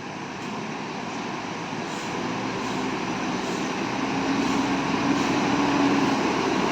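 Large bus's diesel engine running with a steady hum, growing gradually louder as the bus draws near.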